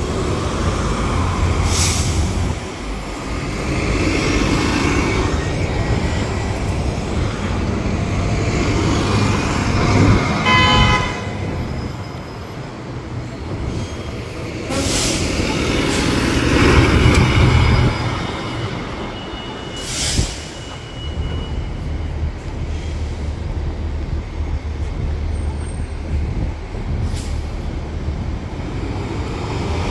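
Heavy road traffic with large diesel vehicles, buses among them, running and passing, their rumble swelling and fading. Several short sharp hisses of air brakes, and a brief horn-like toot about ten seconds in.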